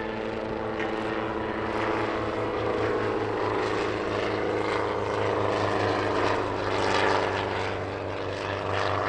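Light helicopter flying a display, its steady engine and rotor drone growing louder toward about seven seconds in. Over it runs a hiss with scattered crackles from the lit pyrotechnic fountains mounted on the helicopter.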